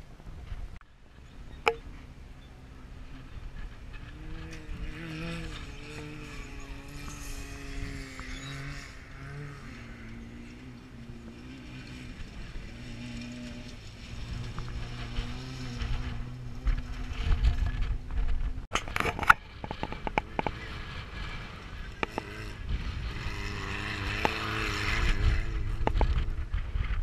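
Off-road race vehicle engine running at a distance, its pitch wavering up and down as it revs. Past the middle, a louder low rumble with several sharp knocks comes in.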